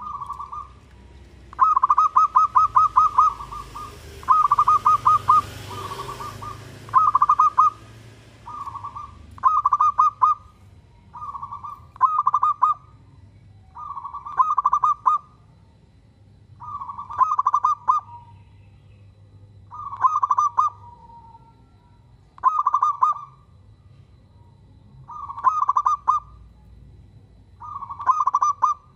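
Zebra dove (perkutut) singing its cooing song: a rapid run of short staccato coos near the start, then phrases of a few coos repeated about every two to three seconds.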